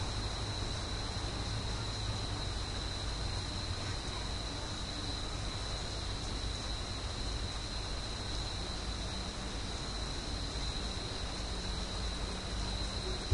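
Steady background hiss with a constant high-pitched whine and a low hum, no distinct events; a brief click right at the end.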